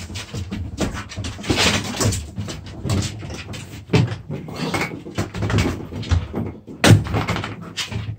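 Two dogs play-fighting: scuffling, with paws scrabbling and bodies bumping on the floor in a run of irregular knocks and thumps.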